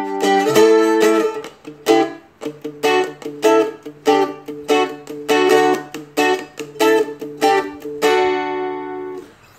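Seagull Merlin M4 four-string strumstick strummed in short, rhythmic strokes about two a second, moving from a G chord to an A chord. The last chord is left to ring for about a second near the end.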